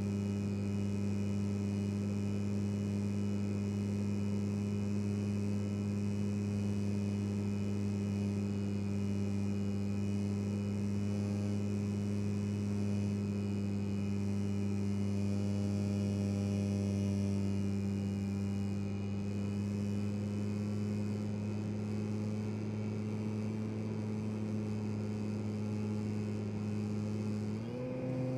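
Brushless electric motor and propeller of an FMS 1500 mm P-47 RC warbird running at steady throttle: an even, humming drone at one constant pitch, which steps up in pitch near the end.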